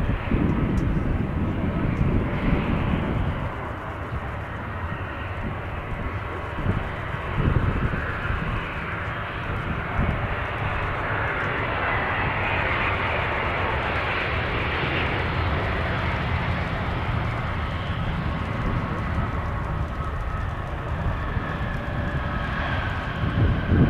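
Airbus A350-900 airliner with Rolls-Royce Trent XWB engines coming in to land: a steady jet rush, with a faint high whine rising out of it over the last few seconds.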